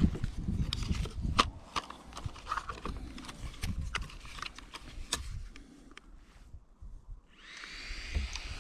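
Plastic clicks and knocks from a DJI Mavic folding drone being handled, its arms and propellers unfolded by hand, over a low rumble of handling. Near the end a faint steady hiss with thin high tones comes in.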